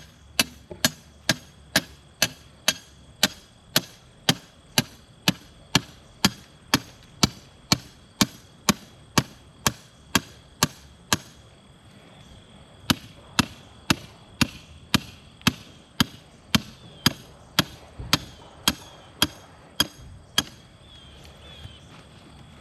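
A hammer striking a driveway marker picket over and over, about two sharp blows a second, driving it into the ground. The blows pause briefly about halfway and stop shortly before the end.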